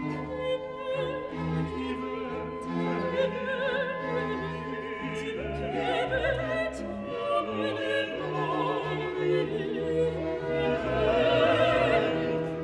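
Operatic singing with orchestral accompaniment: a voice with wide vibrato over sustained low string notes.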